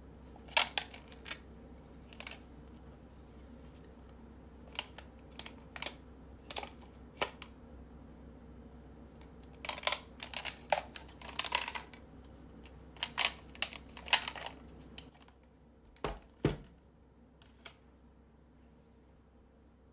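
Light plastic clicks and knocks at irregular intervals as glue sticks and a glue gun shift about in a hard clear plastic organizer box, with two duller knocks near the end as the box is set down on the table.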